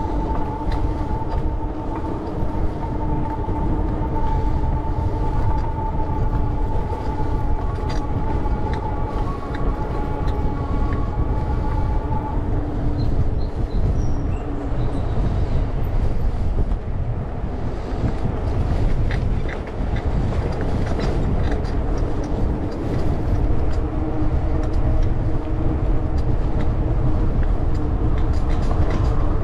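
Steady wind rumble and rolling noise on the microphone of a moving bicycle, with a steady whine that fades about twelve seconds in and comes back near the end.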